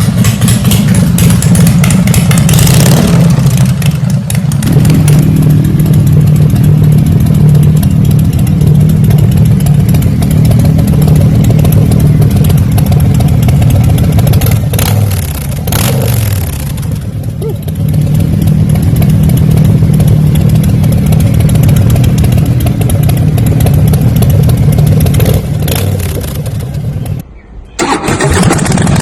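Harley-Davidson Breakout's V-twin running loud through its exhaust, with a low, deep note. Its pitch falls away about halfway through, and the sound drops out for a moment near the end.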